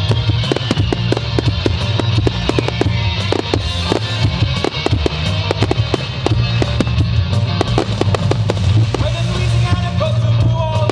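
Fireworks crackling and banging in rapid, dense succession over loud music from the show's soundtrack.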